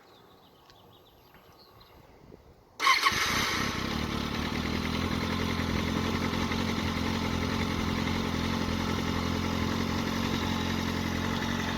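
A warm 2007 Kawasaki Ninja ZX-6R's inline-four engine, on its stock exhaust with the butterfly valve held open, starts about three seconds in and settles into a steady idle.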